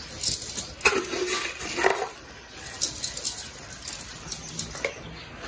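Kitchen handling sounds while okoy batter is being seasoned: scattered light clinks and taps of utensils against a bowl and containers.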